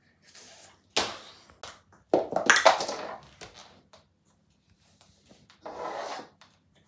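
A plastic toy ball hitting the floor with a sharp knock about a second in and splitting open on impact, followed by a louder scuffle of handling noise as the two hollow halves and the toy inside are picked apart on a shaggy rug.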